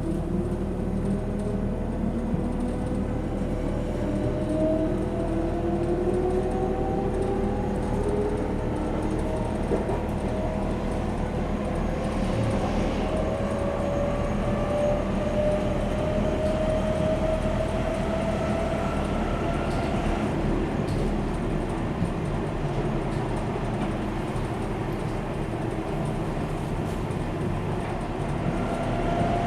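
Inside a Berlin S-Bahn class 480 electric train under way: the electric traction drive's whine climbs slowly in pitch in several tones as the train gathers speed, over a steady running rumble.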